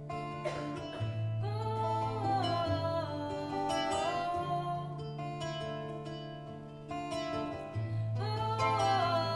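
Music: plucked acoustic guitar with a singing voice, over held low bass notes that change every few seconds.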